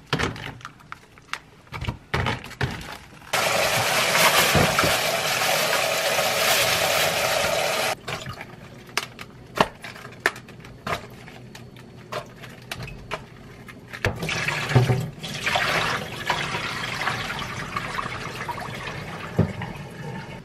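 Kitchen tap running into a stainless sink and splashing over napa cabbage in a plastic colander basin, with handling knocks and splashes between. The tap runs loudly for about four seconds from about three seconds in, stops suddenly, and runs again briefly around fifteen seconds. At the start, plastic packaging crinkles and clicks as vacuum-packed meat and sauce packets are handled.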